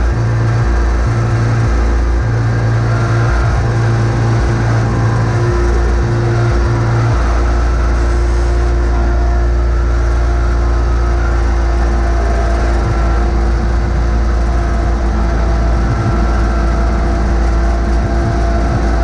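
John Deere X585 garden tractor's V-twin engine running steadily under load, while its 54-inch front blade scrapes along the pavement pushing snow.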